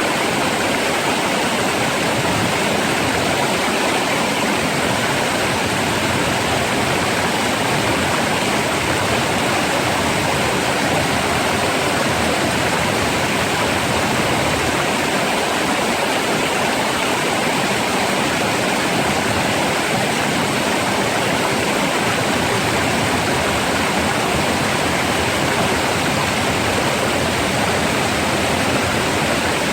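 Water flowing fast and rough, a steady rushing sound with no breaks.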